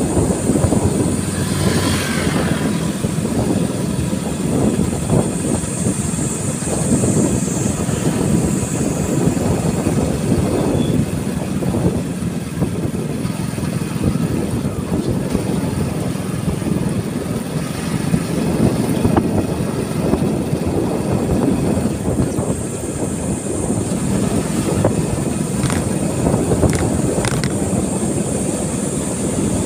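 Motorcycle riding along: steady engine and road noise, with wind buffeting the microphone.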